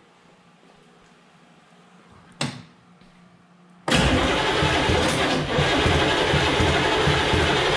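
Starter cranking the HMMWV's 6.2-litre V8 diesel on a first start attempt after restoration. The cranking begins suddenly about four seconds in and goes on steadily, a single knock sounding a second or so before it.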